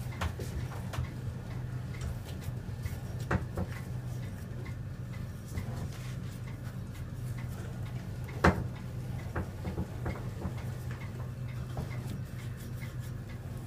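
Hand-cranked metal meat grinder with a cookie-press attachment being turned steadily as it pushes out nut dough: a regular light ticking, about two ticks a second, with a louder knock about three seconds in and a sharper one about eight and a half seconds in.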